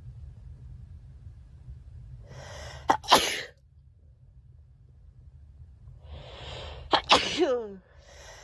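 A girl sneezes forcefully twice, about three and seven seconds in. Each sneeze follows an audible in-breath and trails off in a falling voiced sound.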